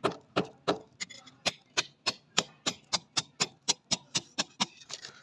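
Rapid, even hammer blows, about three to four strikes a second, quickening slightly toward the end.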